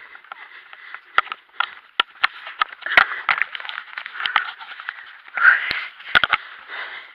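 Close rustling and scraping of clothing and gloves, broken by a series of sharp knocks, as a climber hauls himself up steel rungs set in granite rock.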